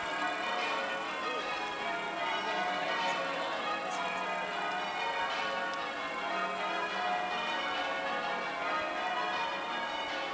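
Church bells ringing a continuous peal, many bells sounding in quick overlapping succession.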